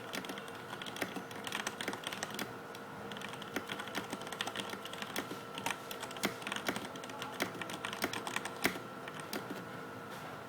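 Typing on a CM Storm Quickfire Rapid mechanical keyboard with Cherry MX Black linear switches: a fast, uneven stream of key clacks, several a second.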